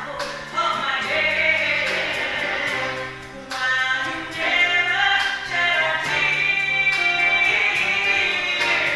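Female jazz vocalist singing with a big band backing her, holding long notes.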